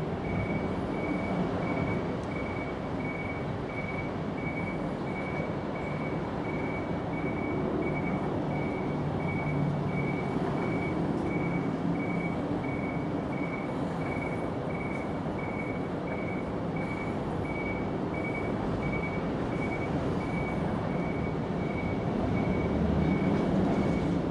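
A vehicle's reversing alarm beeping steadily at one pitch, about twice a second, over a low engine rumble.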